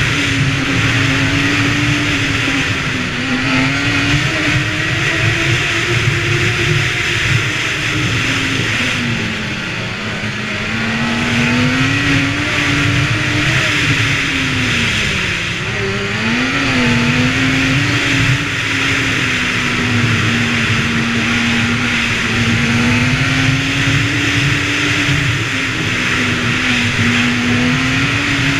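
Snowbike engine running at riding speed, its pitch rising and falling with the throttle and dipping lowest about halfway through, over a steady hiss of wind and track noise.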